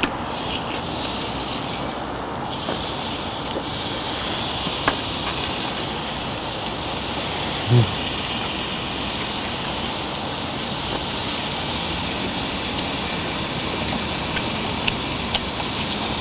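Beef sirloin sizzling as it cooks: a steady frying hiss that grows brighter a couple of seconds in, with scattered crackles and pops of spitting fat. A single low knock comes about halfway through.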